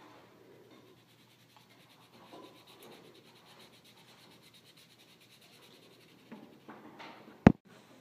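Faint rubbing and scratching, with a few soft taps and then one sharp knock near the end.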